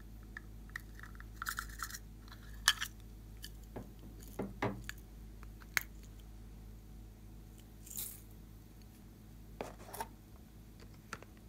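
Scattered clicks, taps and crinkles of hands handling small plastic containers, with one sharp click a little under three seconds in.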